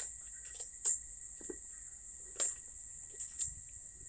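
A few short, quiet rustles and taps of a sheet of paper being handled and lifted, over a steady high-pitched background whine.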